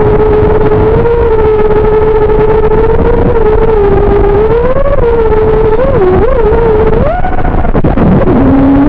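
FPV racing quadcopter's brushless motors and propellers whining as one loud pitched tone with overtones. The pitch stays level at first, wobbles down and up in quick throttle blips about six seconds in, climbs briefly, then drops to a much lower tone near the end.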